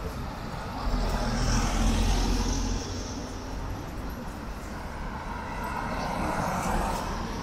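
Cars driving past on a city street: one passes close with a deep rumble, rising about a second in and loudest around two seconds, and a second car passes near the end.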